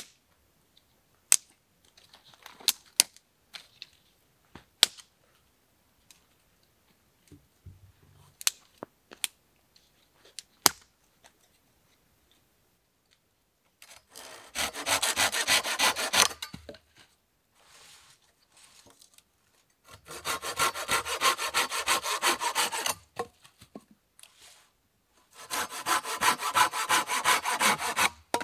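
Hand saw cutting through a wooden pole in three bouts of quick back-and-forth strokes, the last ending near the end. Before the sawing begins there are scattered sharp clicks and snaps of sticks being handled.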